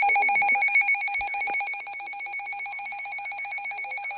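Emergency Alert System attention signal: the harsh two-tone alarm (853 and 960 Hz sounded together) that precedes an emergency alert. It holds steady, then drops somewhat in level a little under two seconds in.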